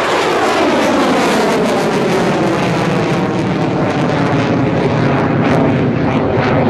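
Jet noise of a Mitsubishi F-2 fighter's single F110 turbofan as it flies past. The sound is loud and steady, and its pitch sweeps down in the first few seconds as the jet goes by.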